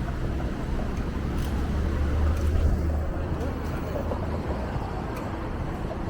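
Street ambience dominated by wind buffeting the microphone over traffic, with a heavy low rumble that swells in the middle and eases off, and voices of passers-by.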